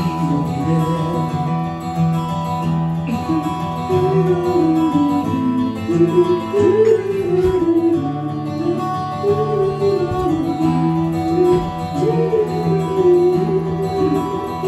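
A man singing a slow melody to his own acoustic guitar accompaniment, through a live PA.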